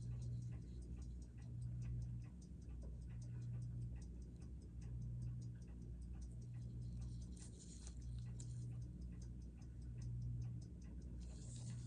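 Seiko Y187-7A30 quartz chronograph ticking: a fast, even run of light ticks, about four or five a second, over a low hum.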